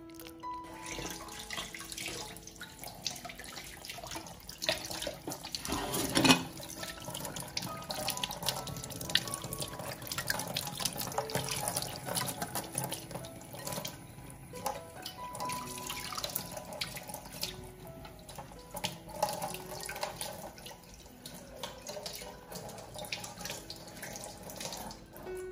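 Kitchen tap running into a stainless steel sink, the stream splashing over hands, with one louder thump about six seconds in.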